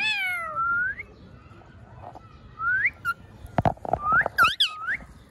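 Indian ringneck parrot calling and whistling: a falling call at the start, then a series of short rising whistles. Around the middle come a few close knocks, loud and sharp.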